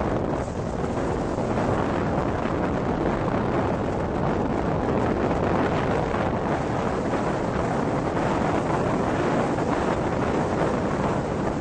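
Steady rushing noise of a rainstorm, with wind on the microphone.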